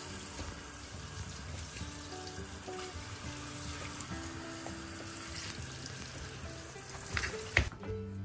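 Steady hiss of running water, as from a tap, that stops abruptly with a click near the end, with soft background music underneath.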